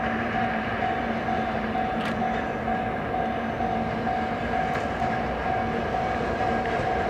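A train running, with a steady hum and whine over even running noise and a couple of faint clicks.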